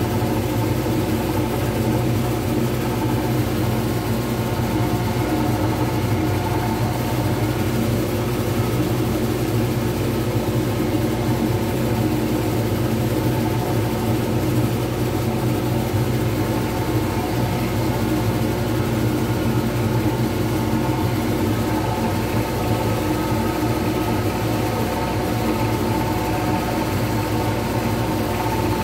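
Wood lathe motor running steadily with an even hum, spinning a resin pen blank while it is wet-sanded with a hand-held abrasive pad.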